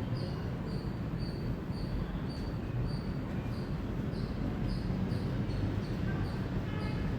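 Indian palm squirrel chirping: a steady run of short, high chirps, about two a second, over a constant low background rumble.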